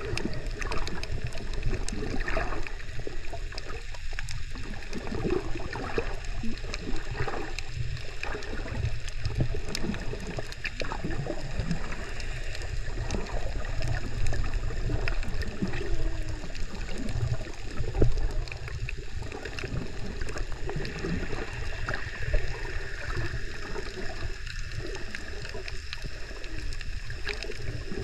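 Underwater water sound heard at a snorkeler's submerged camera: a low rumble and irregular gurgling water movement, with many small scattered clicks.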